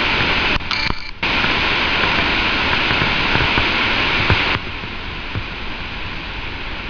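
Steady, loud roar of Victoria Falls' falling water and spray, with a brief dip just under a second in and a drop to a softer, duller roar about four and a half seconds in.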